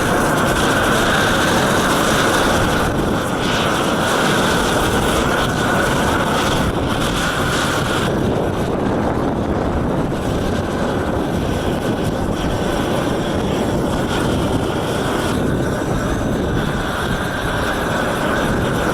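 Propane roofing torch burning with a loud, steady rushing noise, run over a damp concrete roof screed to dry it.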